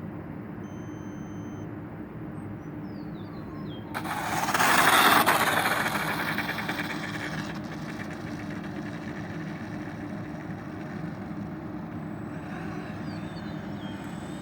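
Electric ducted-fan RC airliner jet flying past: a rushing whoosh that swells suddenly about four seconds in, peaks a second later and fades away over the next few seconds, over a steady background hum.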